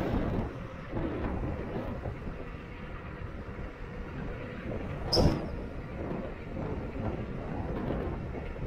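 Wind rushing over the camera microphone and tyre rumble from a Delfast Top 2.0 e-bike rolling along a paved road, with one sharp knock about five seconds in.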